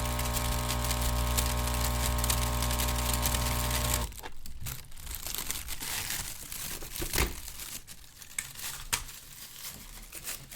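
Vaporizer's air pump running with a steady hum and airflow hiss as it fills the bag, then switching off about four seconds in. The bag then crinkles and rustles, with a couple of sharper clicks.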